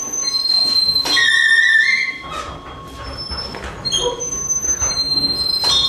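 Large Tibetan Buddhist prayer wheel turning on its axle, giving out high-pitched squeals. The loudest is a wavering squeal about a second in.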